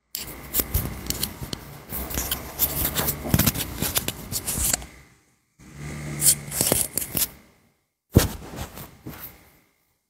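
Handling noise of a clip-on microphone being fitted: rustling, scraping and clicking from rubbing against the mic, in three bursts, stopping about half a second before the end.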